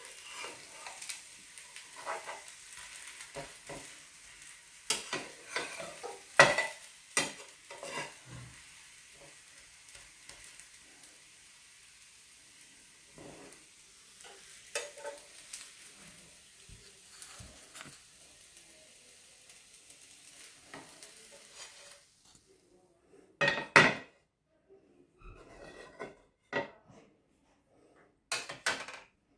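Chakli pitha batter sizzling in a hot oiled pan while a spatula scrapes and taps against the pan. About two-thirds of the way through, the sizzle cuts off, and a few separate knocks of utensils follow.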